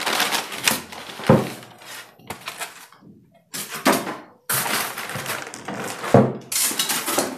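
Polystyrene foam packing blocks being pulled off a plastic-wrapped room heater: stretches of foam rubbing and plastic rustling, with two sharp knocks, one about a second in and one near the end.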